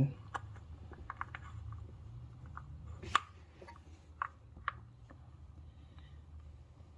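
A socket being turned by hand on the ignition-coil hold-down bolts of a Subaru FA20 engine: scattered light metallic clicks and taps at an irregular pace, a few sharper ones about three and four seconds in.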